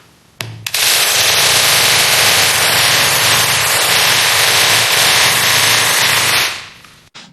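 Mini chainsaw cutting, a loud dense rattle that starts about a second in and fades out near the end.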